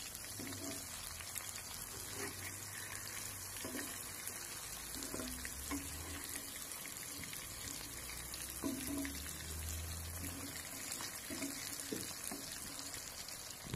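Marinated fish pieces sizzling steadily as they shallow-fry in a little oil in a kadai. A handful of short taps and scrapes of the turner against the pan sound through it as the pieces are flipped.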